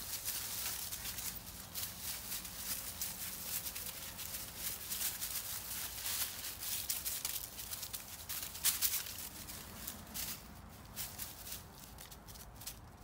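Dry fallen leaves crunching and rustling underfoot in quick crackly bursts, thinning out and growing quieter over the last few seconds.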